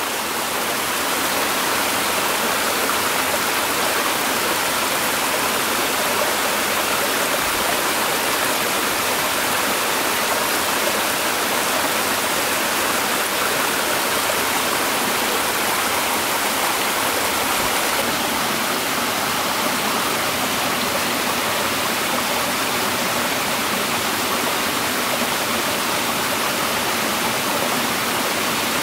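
Steady, even rushing of water.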